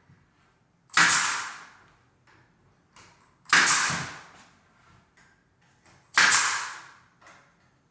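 Pneumatic nail gun firing three times, about two and a half seconds apart, driving nails through door casing into the jamb; each shot is a sharp crack followed by a short hiss of exhaust air.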